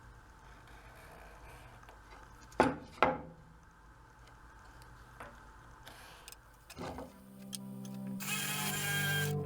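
Two sharp knocks about half a second apart, then a softer knock a few seconds later, over faint room hum. Background music fades in near the end.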